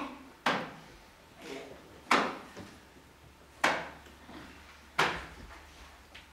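Four loud, sharp strikes about a second and a half apart, each dying away with a short echo, with a few softer knocks between them.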